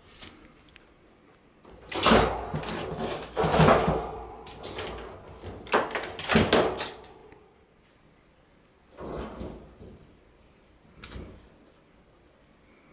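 Wire pet cage rattling and clanking as a cat moves about inside it and paws at a plastic tissue-box lid, in loud clattering bursts about two to seven seconds in, then two softer knocks later.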